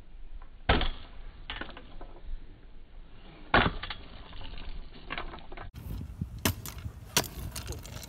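Stunt scooter knocking and clattering on pavement: several sharp knocks of its deck and small wheels hitting concrete and asphalt, the loudest about three and a half seconds in, over the rough noise of the wheels rolling on cracked asphalt.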